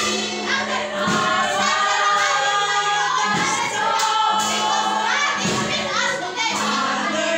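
Congregation singing a worship song together over steady instrumental accompaniment with held low notes.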